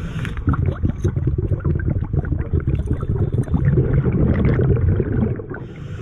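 Scuba regulator heard underwater: a long exhalation of bubbles gurgling and crackling over a low rumble, then the hiss of the next breath drawn through the regulator starting near the end.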